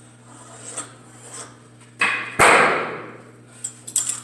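Weight plate being pulled off a barbell sleeve: a scrape about two seconds in, then one loud metal clang that rings out for most of a second, and a few light clacks near the end.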